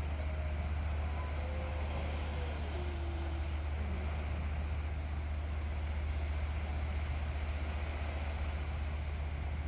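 Steady low rumble with an even hiss above it, unchanging throughout. In the first few seconds a faint tone glides downward twice.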